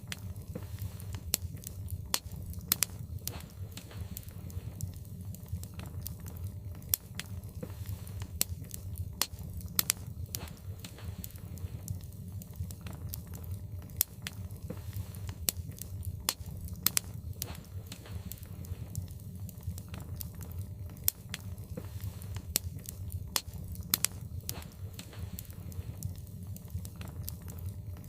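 Logs burning in a fireplace: sharp, irregular crackles and pops, a few each second, over a steady low noise from the fire.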